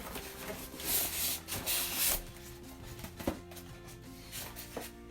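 A rice cooker's packaging being opened by hand: about a second of rubbing and scraping, then a couple of sharp knocks. Background music with held notes plays throughout.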